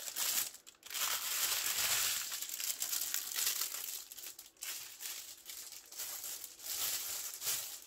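Clear plastic bags crinkling and rustling as a big bag of small bagged diamond painting drills is handled and the little bags are spread out on a desk.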